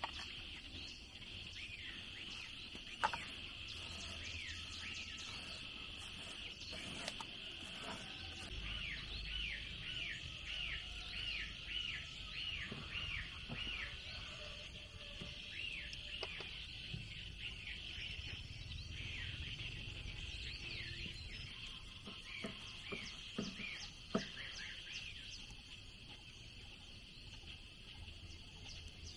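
Outdoor farm ambience: a steady high insect drone with repeated short, downward-sweeping bird chirps, coming in runs of a few a second. A few isolated sharp knocks stand out.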